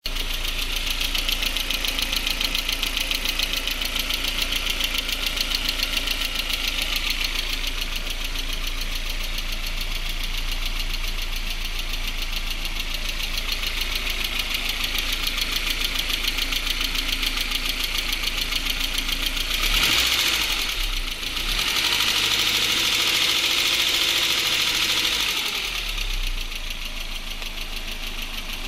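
Engine running with a fast, even knocking that keeps pace with it, the sign of an internal engine knock. It is revved up briefly about two-thirds through, then held higher for a few seconds before dropping back to idle.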